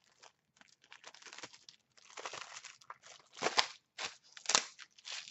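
Plastic wrapping on a Blu-ray/DVD case crinkling and crackling as it is pulled off by hand, in irregular rustles with two louder crackles past the middle.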